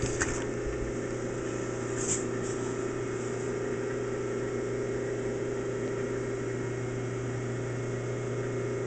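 Steady electrical hum of the running power equipment for a Spectra-Physics 168 argon ion laser (its 3-phase supply from a rotary phase converter and the laser power supply), with a couple of light clicks in the first two seconds.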